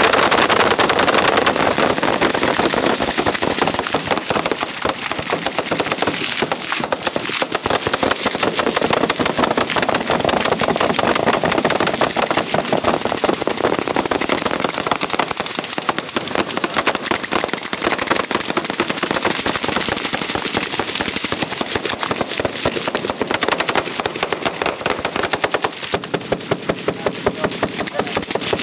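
Many guns on a firing line shooting at once, including submachine guns: a dense, unbroken stream of overlapping shots. Near the end the fire thins into a more even run of shots.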